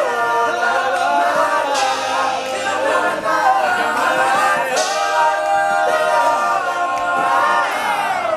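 All-male a cappella group singing wordless close harmonies in several voice parts, with breathy percussive hiss now and then. Near the end the chord slides down in pitch and fades away.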